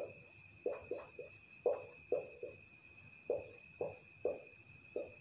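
Marker pen writing on a whiteboard: about a dozen short strokes in quick, uneven runs.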